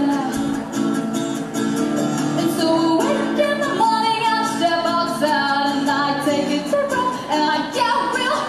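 A woman singing a melody into a microphone, accompanied by a strummed acoustic guitar.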